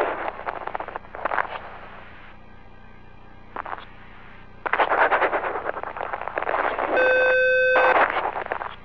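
Radio communication loop with bursts of hiss and static as the channel is keyed, the longest lasting several seconds in the second half. A steady electronic beep about a second long sounds over it near the end.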